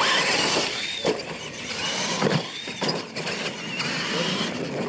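Two R/C monster trucks launching off the start line together and racing on dirt: a sudden burst of motor and drivetrain noise with a whine that rises and falls, and a few knocks.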